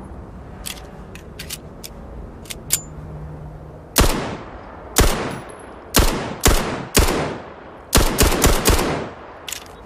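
Pistol firing about nine shots, each with a short ringing tail. The shots come about one a second at first, then in a quick run of four near the end, after a few light clicks at the start.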